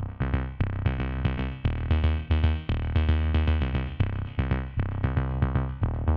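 Electronic background music: synthesizer notes over a steady drum-machine beat.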